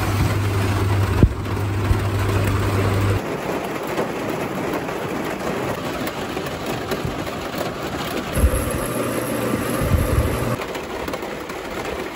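Steady rain, an even hiss, with a low steady hum under it for the first three seconds and again for a couple of seconds near the end.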